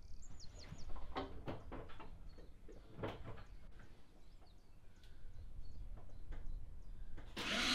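A few faint knocks and clicks, then near the end the 2007 Renault Laguna's electric parking brake motor whirs, its pitch dropping slightly as it pulls the handbrake cable tight and locks the rear wheel.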